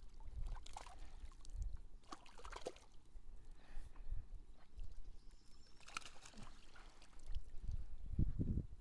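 Water splashing as a hooked crucian carp thrashes at the surface and is scooped into a landing net, in several short splashes. Near the end the net is lifted out of the water, with dripping and a low rumble.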